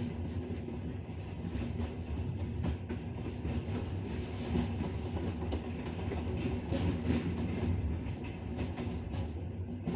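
Train running on the rails: a steady low rumble with the clatter and knocks of the wheels over the track.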